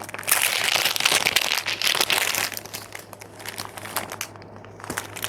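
Small plastic bags of diamond-painting drills crinkling as they are handled and sorted by hand. The crinkling is busiest for the first few seconds and then softer.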